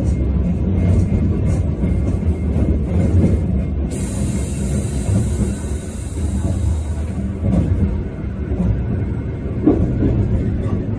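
Sapporo streetcar running along street track, heard from inside the car: a steady low rumble of wheels and motor hum, with occasional clicks and knocks. A high hiss sounds for about three seconds midway.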